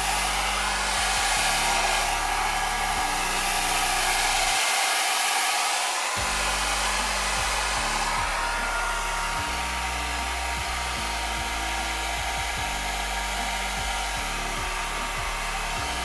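Xiaomi Mi Ionic hair dryer (CMJ01LX3) running in its first, warm-air mode: a steady rush of air with a faint motor whine, not very loud. The level rises in the first second as the nozzle swings round, then holds.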